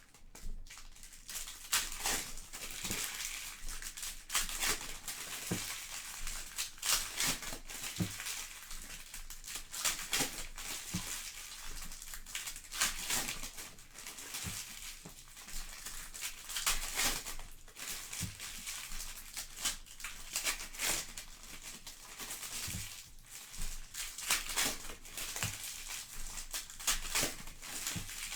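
Crinkling and tearing of Panini Prizm trading-card pack wrappers as packs are ripped open and handled, in a dense run of irregular crackles.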